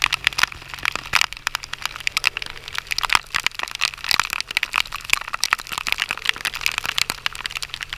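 Handling noise from a handheld action camera: rapid, irregular crackling and clicking as it is moved and rubbed. A faint steady low hum runs underneath.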